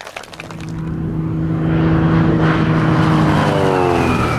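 Cessna 170 light plane's piston engine making a low flyby: a steady engine tone that grows louder, then drops in pitch as the plane passes near the end.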